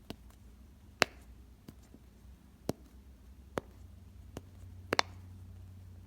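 Silicone Pop-It fidget ball having its bubbles pressed, giving a string of sharp pops at irregular spacing, roughly one a second.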